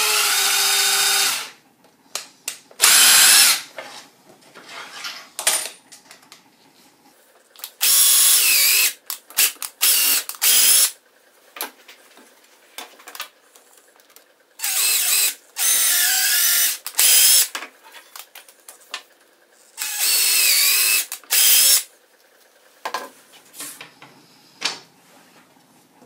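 Cordless drill driving a combination drill-and-tap bit through plastic sled runners, run in about ten short bursts of a second or so. The motor's pitch rises and falls within each burst, and small handling clicks come in the gaps.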